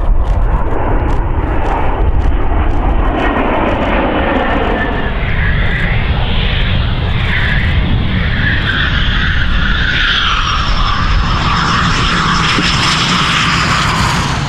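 Fighter jet engines running at high power, a loud steady rush of jet noise from Dassault Mirage 2000 fighters taking off. In the second half a high whine sits over the rush, dropping slightly in pitch.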